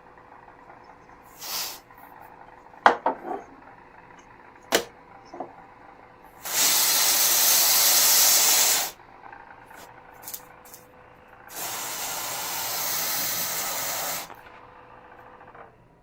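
Aerosol freeze spray (cryogenic cooling spray) hissing in two long blasts of about two and a half seconds each, chilling an overheated, heatsink-less CPU. A few sharp clicks come before the first blast.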